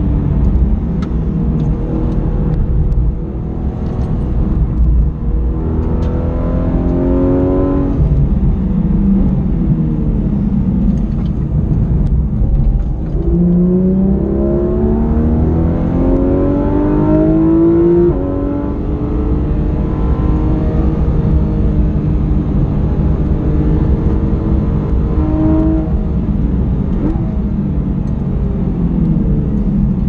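Porsche 911 GT3 RS's naturally aspirated 4.0-litre flat-six heard from inside the cabin at speed on track. The revs climb twice, each climb ending in a sudden drop about 8 and 18 seconds in, and the engine runs more evenly after that over a steady low road rumble.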